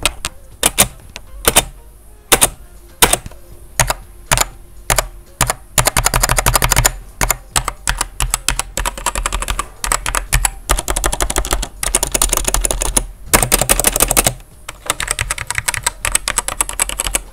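GamePower Calypso mechanical keyboard with optical red switches being typed on as a sound test. It starts with single keystrokes about once or twice a second. About six seconds in it changes to rapid, dense typing with short pauses, and this carries on to the end.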